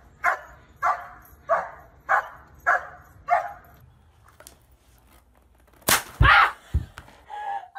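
A dog barking over and over, about one bark every 0.6 seconds, stopping about three and a half seconds in. After a short pause come loud thumps, about six seconds in, as a person tips over backward onto the floor.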